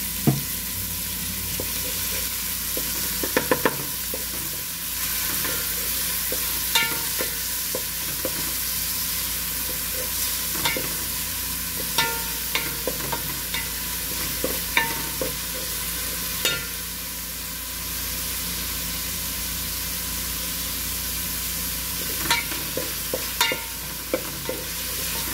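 Chopped shallots, ginger and garlic sizzling in hot oil in an aluminium pot, stirred with a wooden spoon that knocks against the pot now and then, with a quick run of knocks about three seconds in and again near the end.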